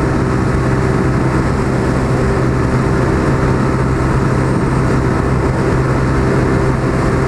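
Rusi Mojo 200 motorcycle engine running at a steady high speed near its top speed, about 120 km/h, its pitch held constant, with wind rushing over the microphone.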